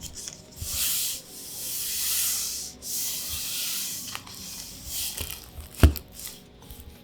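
Trading cards and their packaging being handled: three rubbing, sliding swishes in a row, then fainter rustling and a single sharp knock about six seconds in.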